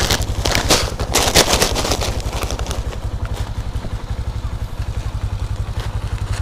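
Small motor scooter engine idling with an even, rapid putter. For about the first two seconds, plastic rice bags crackle and rustle as they are stacked onto the scooter.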